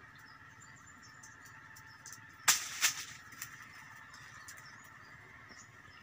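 Hands handling a roasted bael fruit among dry leaves: two short, loud scraping rustles about a third of a second apart, a little over two seconds in, over a faint steady outdoor background.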